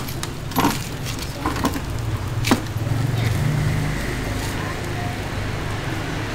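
Street traffic: a vehicle engine running close by with a steady low hum that swells about three seconds in, with a few sharp clicks before it.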